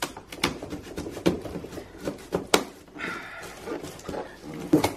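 Knife slitting packing tape on a cardboard box: a run of scratches, taps and scrapes on the cardboard, with a short scraping rush about three seconds in.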